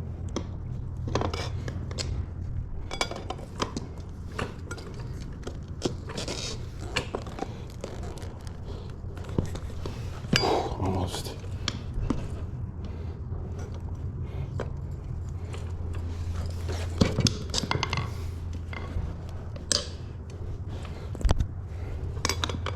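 Irregular metal clinks and scrapes as a tight tyre is levered onto a wheel rim, over a steady low hum.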